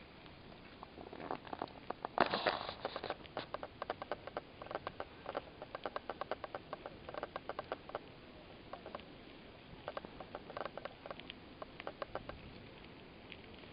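Bicycle freewheel ticking in quick runs of even clicks as the bike coasts and rolls along a paved path, with some light rattling.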